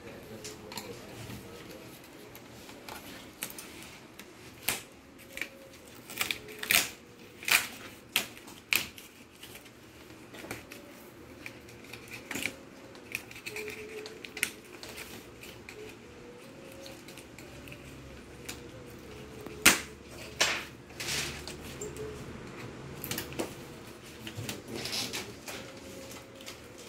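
Irregular clicks and knocks of hands and tools working on an LED TV as it is taken apart to reach its backlight, the loudest knock about twenty seconds in.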